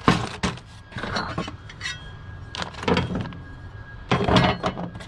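Plastic bag of steel bolts, nuts and washers clinking and rustling as it is handled and set down, in several separate bursts of clatter with a sharp knock right at the start.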